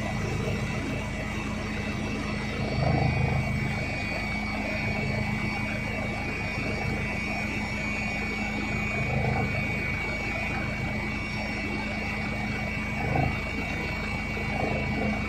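Helicopter engine and rotor noise heard from inside the cabin: a steady drone with a constant high whine, swelling briefly a few times.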